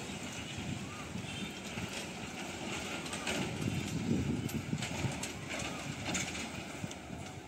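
Truck driving slowly over a railway level crossing, its engine running low while its body knocks and rattles as the wheels bump across the rails, loudest about four seconds in.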